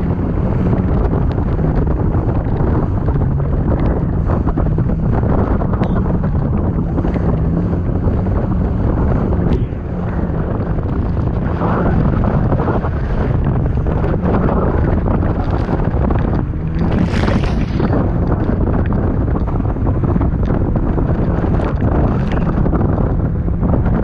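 Jet ski (personal watercraft) engine running under way through choppy water, buried under heavy wind buffeting the microphone, with a brief louder rush of spray or wind about two-thirds of the way through.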